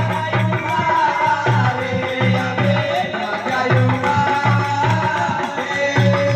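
Folk music: a man singing through a microphone over a steady, repeating drum rhythm.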